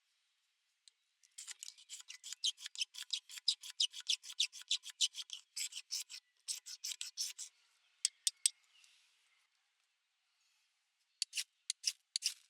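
Rapid rasping strokes, about five or six a second for several seconds, followed by a few shorter runs of strokes.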